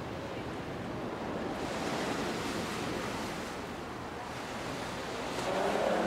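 Rough sea and gale-force wind buffeting the microphone make a steady rushing noise that swells about two seconds in. Near the end a low hum with several pitches begins to rise.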